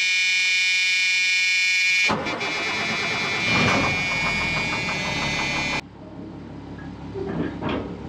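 Caterpillar diesel engine of a medium-duty truck running, heard from inside the cab, with a steady high-pitched tone over it at first. About two seconds in it turns louder and rougher with a fast regular pulse, then stops abruptly near six seconds.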